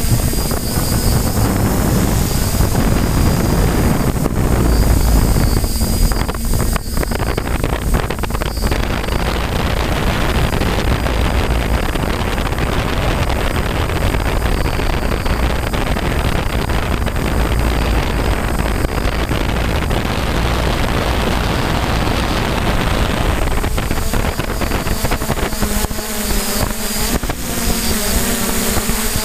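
Six-rotor F550 drone's motors and propellers humming steadily as heard from its onboard GoPro. Wind rushes over the microphone through the middle of the flight and covers the motor hum, which comes clear again near the end.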